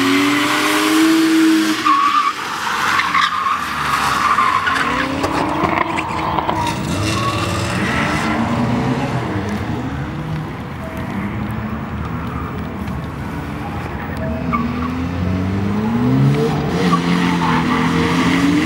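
BMW E36 Touring drift car's engine revving up and falling back again and again as it slides, with the tyres skidding on damp tarmac. The engine drops back a little in the middle and rises again near the end.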